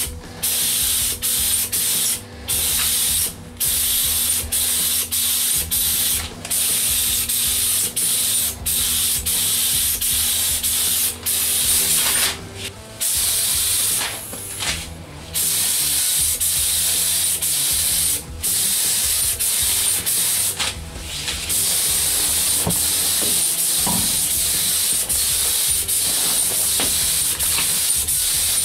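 Compressed-air paint spray gun (gravity-feed) spraying paint in a steady hiss, broken every second or so by short pauses as the trigger is released between passes.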